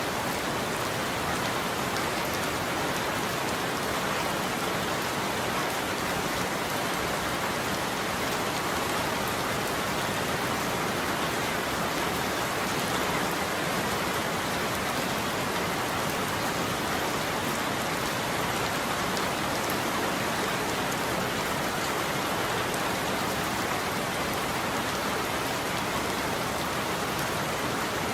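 Steady heavy rain falling, an even hiss with no thunder.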